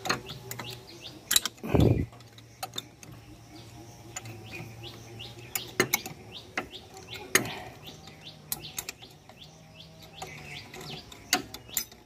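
Sharp metal clinks of tools and gear parts being handled inside an open Sifang power tiller gearbox while a pinion and its circlip are worked free, with a dull knock about two seconds in. Birds chirp in the background throughout.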